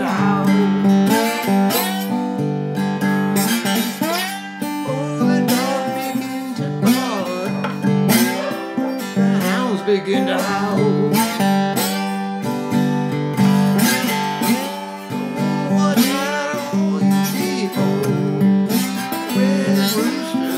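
Solo blues on a small-bodied acoustic guitar, plucked notes with many that bend or slide in pitch.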